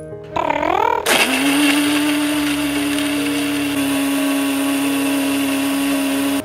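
Electric mixer grinder with a steel jar, blending strawberries, milk, sugar and ice cubes. It starts about a second in and runs steadily at full speed: a loud, even whirr with a constant motor whine.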